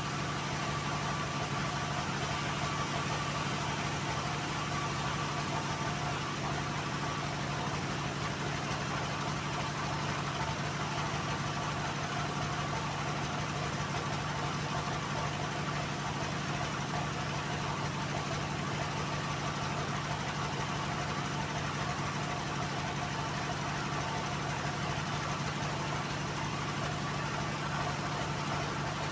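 Homemade bandsaw mill running with a steady, unchanging machine hum.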